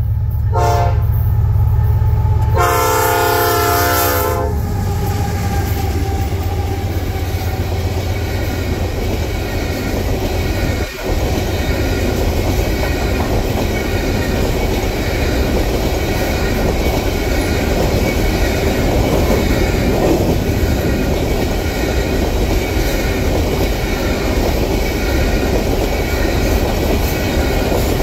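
Air horn of a lead GE AC4400CW diesel locomotive sounds a short blast and then a longer one as the locomotives rumble past. A long string of empty covered grain hoppers follows, rolling by with a steady clickety-clack of wheels on rail.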